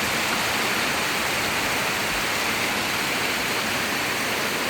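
Storm noise: a steady, even rush of heavy rain and strong wind.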